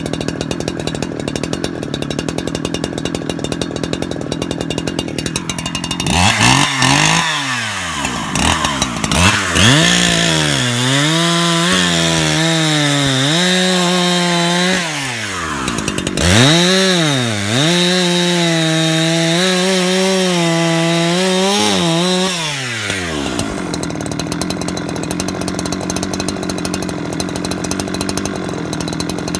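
70cc two-stroke chainsaw idling, then blipped up and down from about six seconds in. It runs at full throttle cutting through a log in two spells of about five seconds each, with a brief drop in revs between them. It falls back to idle for the last six seconds.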